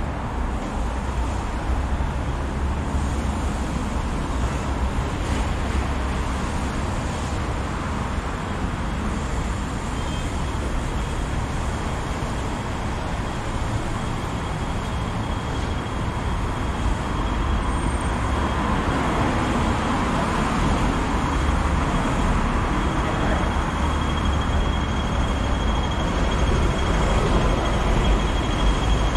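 Steady road traffic noise from a busy city street, a continuous hum of passing vehicles, growing a little louder over the second half.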